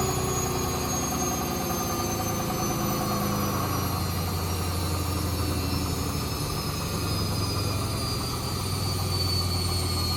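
Hoover Wizard washer dryer spinning a load of wet clothes at high speed: a steady low hum and drum vibration, with a high motor whine that slowly falls in pitch.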